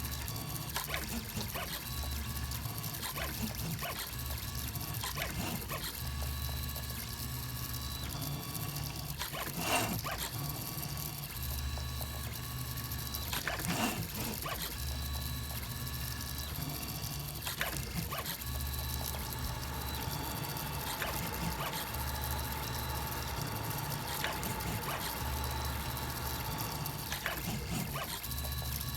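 Filament 3D printer printing: stepper motors whine at steady pitches that shift from one move to the next, over a low hum that starts and stops every second or two, with scattered light clicks.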